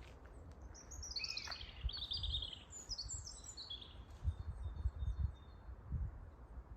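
Small songbirds chirping, a quick run of high, downward-sliding notes in the first half, then fainter calls. Low thumps and rumble sit underneath, loudest in the second half.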